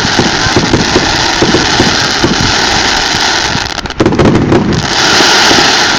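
Fireworks finale: a dense, continuous barrage of bursts and crackling, with a louder bang about four seconds in.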